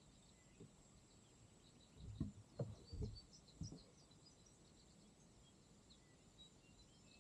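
Mostly near silence with faint bird chirps. About two seconds in comes a short cluster of four or five soft, low thumps from paddling a kayak.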